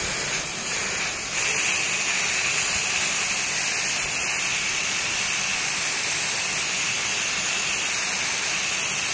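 Two aerosol spray-paint cans hissing steadily as they spray paint onto water in a plastic tub; the hiss grows a little louder about a second in.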